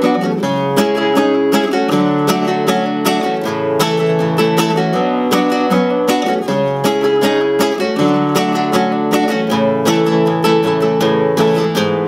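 Nylon-string classical guitar with a capo, strummed steadily through a chord progression, with quick repeated strokes and the chord changing every second or two.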